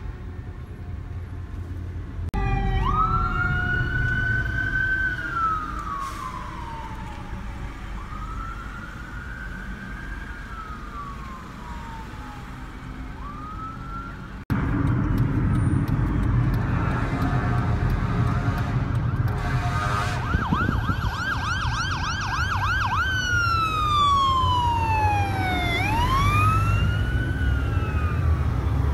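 Fire engine electronic sirens wailing, each rising and then falling slowly, over the low rumble of traffic. After a sudden cut a second siren comes in, switching from a wail to a fast yelp for a few seconds and then back to wailing.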